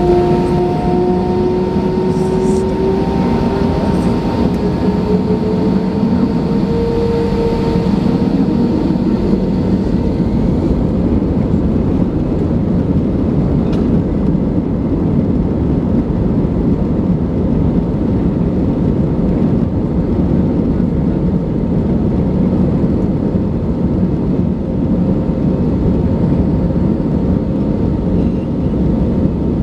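Airbus A319 jet engines heard from inside the cabin: a steady rumble, with an engine whine rising in pitch over the first several seconds.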